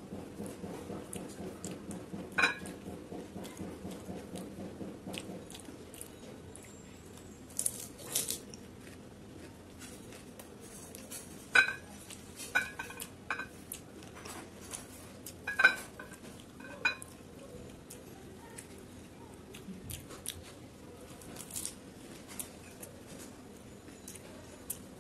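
Fuchka (pani puri) being chewed, a soft rhythmic mouth sound over the first few seconds. Then a handful of sharp glass clinks that ring briefly, as the crisp shells and fingers knock against a cut-glass bowl while being dipped in tamarind water, with faint crunches and squishes between them.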